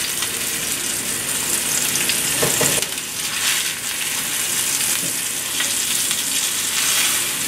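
Swordfish steaks sizzling steadily as they sear in hot oil in a stainless steel pan. About three seconds in, the sizzle swells briefly as a spatula slides under one steak and shifts it.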